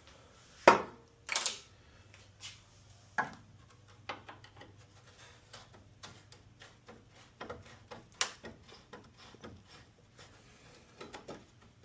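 Hand work on a plastic truck grille with a screwdriver: sharp knocks and clicks of tool and plastic parts, two loud ones about a second in and another about eight seconds in, with a run of small ticks and clicks between.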